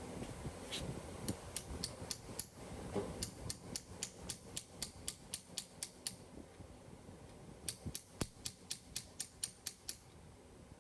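Two runs of evenly spaced sharp clicks or taps, about four a second, each lasting a few seconds.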